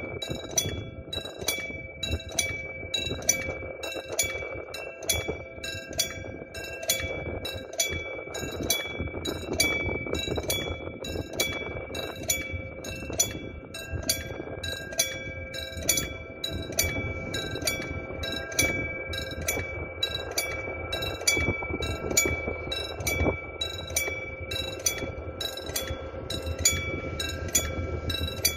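Railway level-crossing bell ringing steadily at about two strikes a second, signalling a train on approach. Under it, the low rumble of a diesel locomotive hauling a tank freight train.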